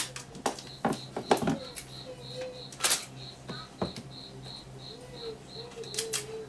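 Hands working a roll of packing tape over cardboard boxes: a scatter of sharp clicks, taps and tearing rasps. A faint high chirp repeats about three times a second in the background.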